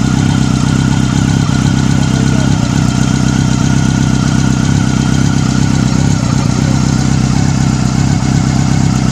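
Yamaha R6 inline-four engine idling steadily while it warms up, with all four cylinders firing.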